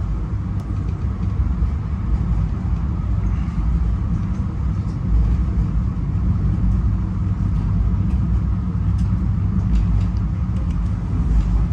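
Steady low rumble of a moving passenger train heard from inside a Skyline dome car, with a few faint clicks and rattles near the end.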